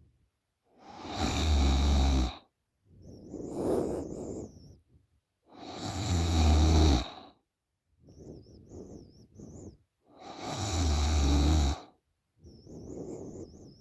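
A girl snoring through an open mouth: three loud, deep snores about four and a half seconds apart, with a softer breath between each.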